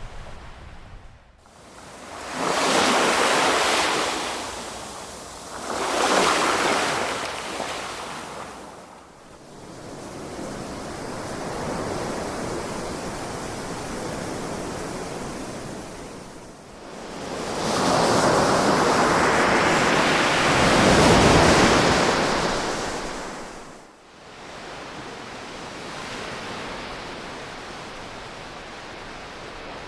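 Ocean waves breaking and washing up the shore in slow swells of hissing surf. Two shorter surges come early, and a longer, louder one comes a little past the middle, with quieter lulls between them.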